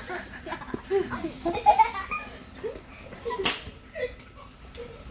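Children laughing and giggling in short bursts, with a single sharp slap about three and a half seconds in.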